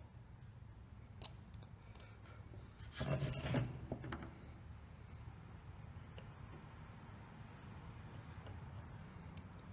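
Chip-carving knife cutting and scraping in a wooden block, faint short scratchy strokes and clicks as the bottoms of the carved notches are cleaned out. About three seconds in there is a louder rubbing knock as the block is turned on the bench.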